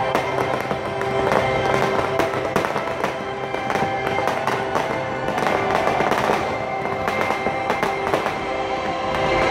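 Fireworks crackling and popping in quick succession, many sharp cracks throughout, with show music playing under them.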